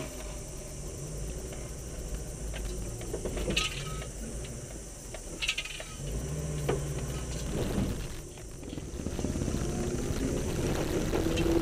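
Car driving along a rough dirt track, heard from inside the cabin: a steady low engine and road rumble with a few sharp knocks along the way.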